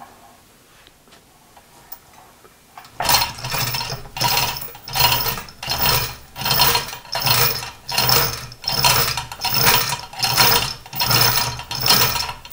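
Manual chain hoist lowering a heavy cast-iron milling-machine knee: the hand chain is pulled in steady strokes, and the hoist's chain and ratcheting gear rattle about twice a second, starting about three seconds in.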